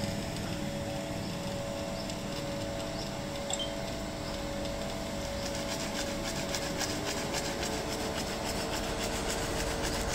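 Steady machine hum with a few faint steady tones, as from a running commercial combi oven's fan. A short high beep from its touch panel sounds about three and a half seconds in, and from about halfway a rapid flickering hiss rises over the hum.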